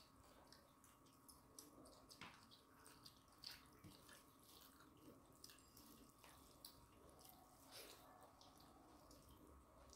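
Faint, irregular wet clicks and squishes of eating by hand: fingers mixing rice and chicken curry on steel plates, and chewing.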